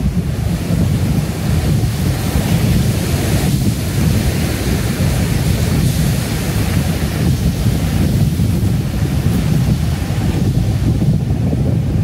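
Heavy ocean surf crashing and white water churning over rocks, a continuous rushing wash. Wind rumbles on the microphone underneath it.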